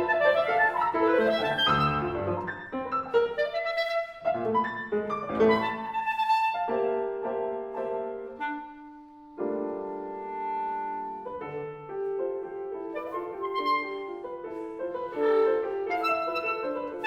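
Clarinet and piano playing contemporary classical chamber music: quick runs of notes, a brief hush with a low held note about halfway, then long held notes and chords before the lines grow busy again.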